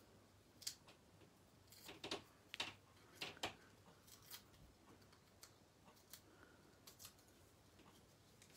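Faint, scattered small clicks and crackles of paper craft handling: foam dimensional adhesive pads being peeled off their backing and pressed onto the back of a paper flower.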